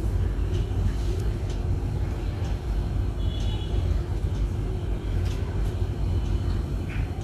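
Steady low background rumble with a faint constant hum, a few light ticks, and a brief high tone a little past three seconds in.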